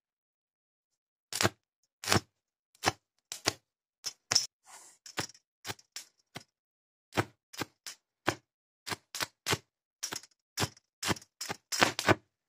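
Homemade electric arc welder, its rod striking a thick iron piece: a string of sharp, irregular arcing cracks as the arc catches and breaks, sparse at first and coming faster and louder near the end.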